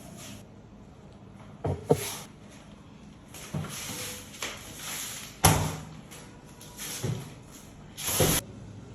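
Knocks and clatters of kitchen items being handled and set down while unpacking and putting things away. There are about seven separate knocks, the loudest about five and a half seconds in.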